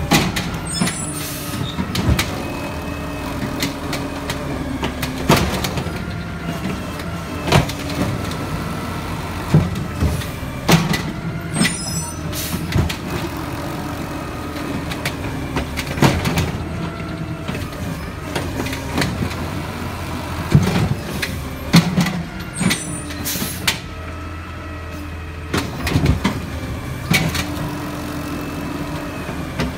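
Automated side-loader garbage truck running on natural gas, working through a line of carts: the engine drones while the hydraulic arm whines up and down, grabbing, lifting and dumping each cart. Sharp bangs come every second or two as carts knock against the hopper and arm, with a few short hisses of air.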